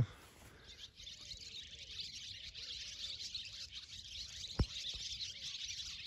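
A flock of young barn swallows twittering, a dense stream of fast high chirps setting in about half a second in. A single sharp knock sounds a little after four and a half seconds.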